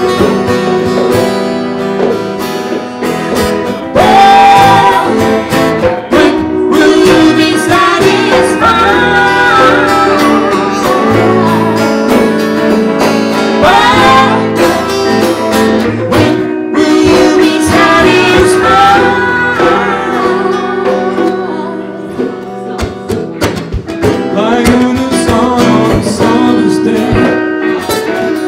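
Live acoustic band: a woman singing lead over two acoustic guitars, recorded straight from the mixing desk.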